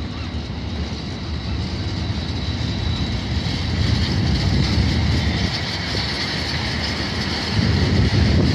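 Freight train of covered steel-coil wagons rolling past close by: a steady rumble and clatter of wheels on rail, with a thin high whine over it. It grows louder for a moment near the end.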